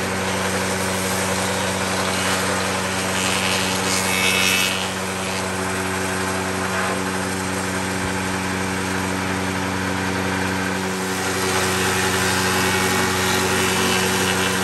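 Bench spindle shaper running with a steady motor hum, its cutter head machining a wooden board. The cutting noise grows louder briefly about three seconds in and again from about eleven seconds on, when the board is fed into the cutter.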